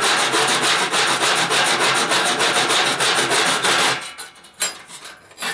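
Small hand-held hacksaw blade sawing through a tab in thin sheet metal with rapid, even strokes, freeing a panel from the dome skin. The sawing stops about four seconds in, followed by a light knock.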